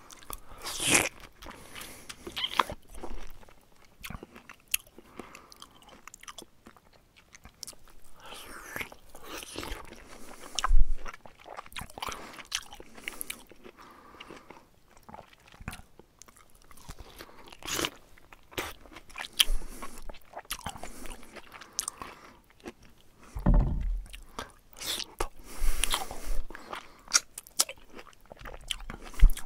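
Bear chewing and biting food, irregular wet crunches and clicks with a few louder knocks.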